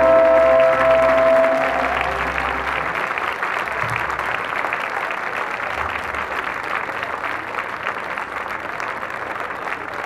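A song ends on a held note about a second and a half in, and a large audience applauds, the applause slowly dying down.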